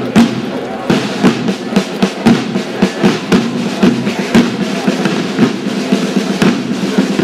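Processional drums, snare and bass drum, beating a steady march at about two strokes a second.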